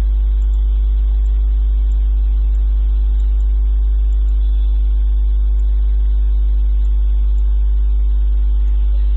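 Loud, steady low electrical mains hum with a stack of steady overtones above it, picked up by the recording setup. Nothing else stands out over it.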